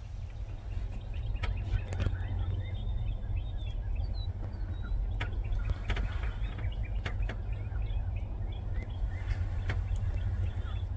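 Small woodland songbirds chirping in quick scattered notes over a steady low rumble, with a few sharp clicks here and there.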